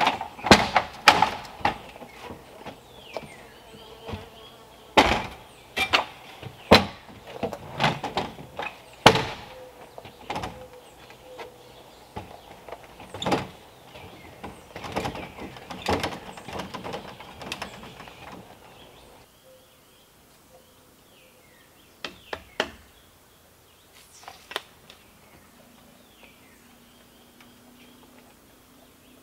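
Aluminium extension ladder clanking: a run of sharp metallic knocks and rattles, some with a brief ring, as it is shifted against log rafters and climbed. The clanking stops about two-thirds of the way through, leaving birds chirping and a few scattered knocks.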